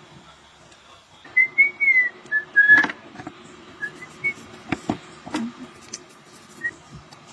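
A person whistling a few high notes, a short rising and falling phrase and then some brief single notes. Several sharp knocks sound in between, like tools or metal parts being handled.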